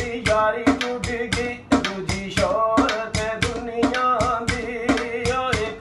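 A man singing a Punjabi tappe-mahiye folk song, accompanied by a quick, steady beat played by hand on a metal tray.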